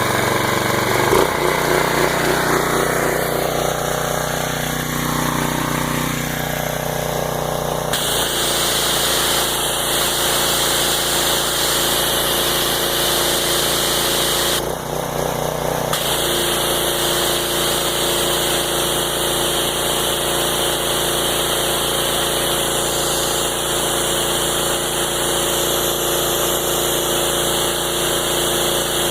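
Gas-engine pressure washer running steadily, warmed up. About eight seconds in, the engine note changes and a high spraying hiss joins it. The hiss stops for about a second midway, then resumes.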